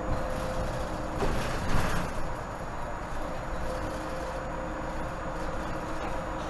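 Inside a 2018 Nova Bus LFS diesel city bus under way: steady drive rumble with a constant whine. A brief, louder burst of noise comes about a second and a half in.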